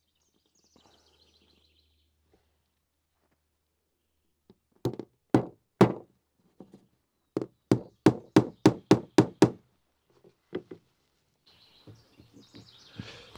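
Small hatchet striking a wooden gunnel strip on a plank workbench: three sharp knocks about half a second apart, then after a short pause a quick run of about ten blows at roughly five a second.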